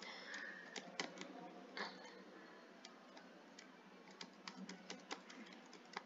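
Faint, irregular clicks and taps of a computer keyboard, about a dozen, scattered through a quiet background.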